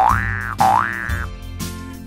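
Two cartoon boing sound effects, each a quick rising pitch, one right at the start and another about half a second later, over steady children's background music.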